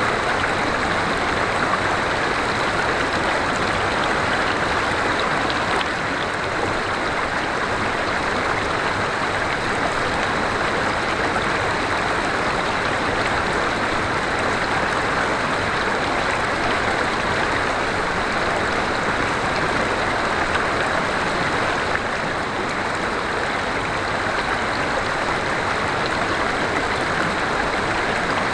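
River water flowing steadily over rocks: a continuous rushing and burbling of a stream.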